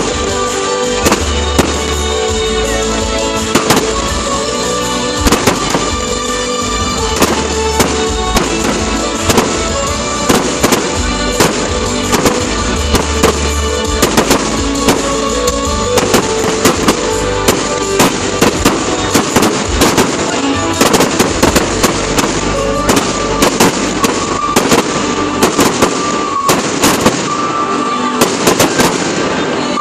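Fireworks display: a constant run of sharp bangs and crackles from shells and comets, coming thicker in the last third, with music playing loudly under the show.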